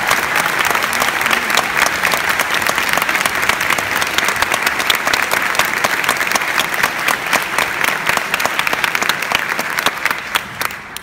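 Cinema audience applauding steadily, a dense patter of many hands clapping that thins out and dies away near the end.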